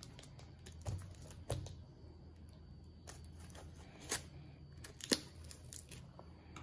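Scissors cutting through packing tape along the edge of a cardboard mailer while the cardboard is handled. There are several sharp clicks and taps, the loudest about four and five seconds in.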